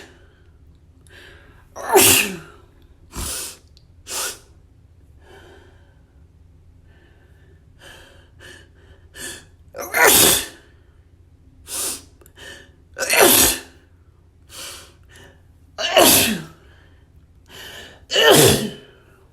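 A person sneezing in a run of fits: five loud sneezes with a falling pitch, about 2, 10, 13, 16 and 18 seconds in, each set off by a gasping in-breath, with shorter, quieter sounds and sniffs between them.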